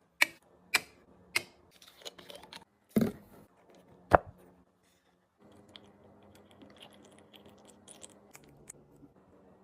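A few sharp clicks and knocks in the first four seconds, with some crackling between them, then faint crackling.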